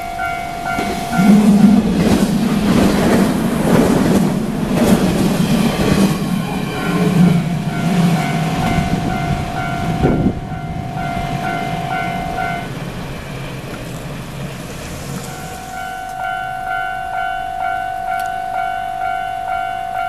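Level-crossing warning bell ringing in a fast, even repeating ding while a train runs past over the rails. The train is loud through the first half and dies away about halfway through. The bell is steady again near the end.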